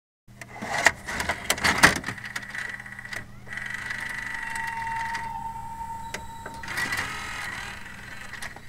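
Video cassette recorder mechanism: a run of clicks and clunks over the first couple of seconds, then a steady whirring whine of the tape transport, over a low electrical hum.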